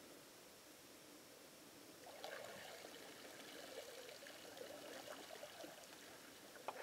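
Water pouring and trickling off a cow moose's muzzle as she lifts her head out of the pond, with light splashing as she wades. It starts about two seconds in, after a faint hiss.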